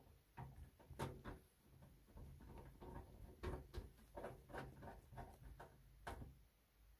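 Faint, irregular clicks, taps and scraping of hands handling metal parts at the expansion-slot brackets of an open desktop PC case, with the sharpest knocks about a second in, in the middle, and near the end.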